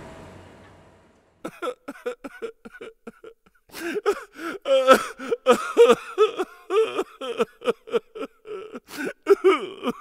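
Carnival ride noise fades out over the first second; then a cartoonish voice sobs and wails in many short, wavering bursts.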